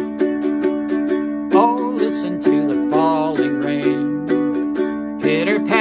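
Ukulele strummed in a steady rhythm, several strokes a second, with a man's voice singing over it from about a second and a half in.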